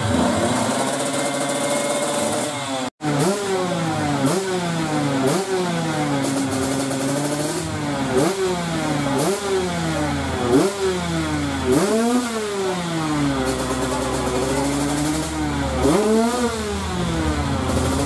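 Kawasaki KX motocross bike engine being revved on its stand, the revs rising sharply and falling back about once a second, with a few longer, higher revs near the end.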